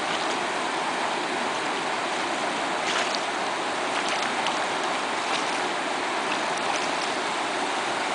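Steady rush of flowing river water, with a few faint clicks over it in the middle.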